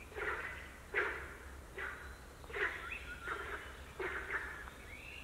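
A bird calling over and over, a short falling call about once a second.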